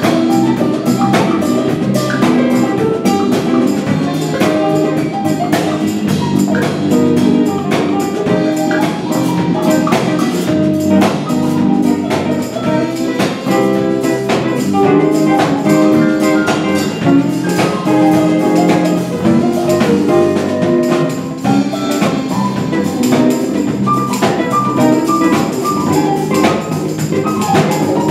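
Live instrumental band jamming: electric bass, keyboard and drum kit playing together, with hand drums, in a steady groove with regular drum hits.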